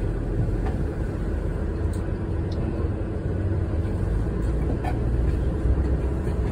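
Tour boat's engine running steadily: a constant low rumble with a faint steady hum over it.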